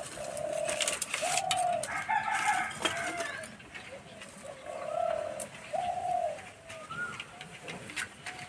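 Doves cooing in a repeated series of low, even notes, each about half a second long. Light clicks and taps of dry sticks being laid into a clay stove come between them.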